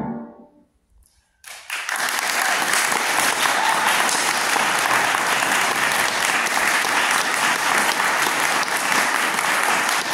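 The last violin-and-piano chord dies away, followed by about a second of near silence. Then audience applause breaks out suddenly and goes on steadily.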